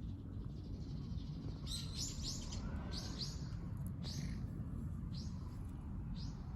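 A small bird chirping: a run of short, high chirps, repeated irregularly from about two seconds in, over a steady low outdoor rumble.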